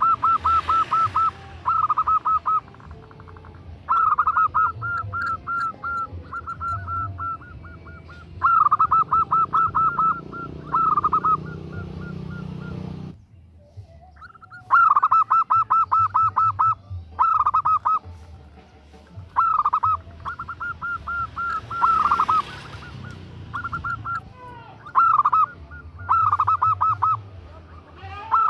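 Female zebra dove (perkutut) calling to a male in rapid bursts of short cooing notes, about ten notes a second. Each burst lasts about a second and comes again every one to two seconds.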